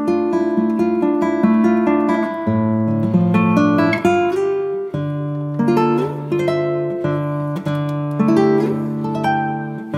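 Background music: an acoustic guitar plucking and strumming chords in a steady, rhythmic pattern.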